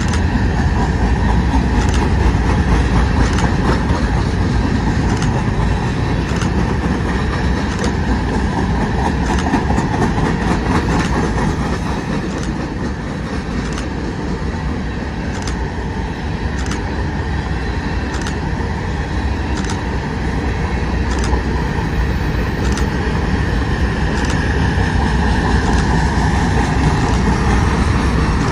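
Covered grain hopper cars of a BNSF freight train rolling past: a steady rumble of steel wheels on rail, with a sharp click about every second and a half.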